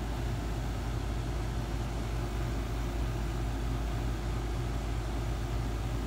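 Carrier rooftop air-conditioning unit running: the compressor and condenser fan make a steady, even drone with a low hum.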